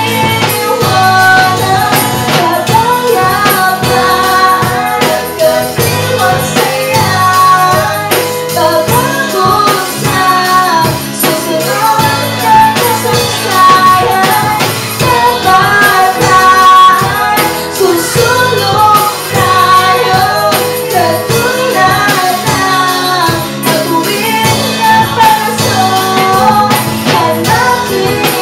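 A woman singing lead into a microphone over a live rock band of drums, bass, electric guitar and keyboard, with cymbals ringing through.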